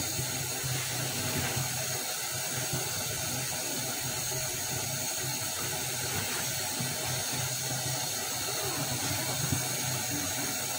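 Steady hiss of a lidded wok of vegetables cooking on a lit gas stove: steam and sizzle under the aluminium lid with the burner flame beneath.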